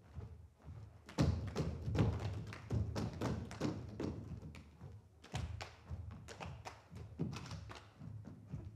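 Bare feet of several dancers stepping and stamping on a stage floor: an irregular run of thuds and slaps, starting about a second in and coming again in a cluster a little past the middle.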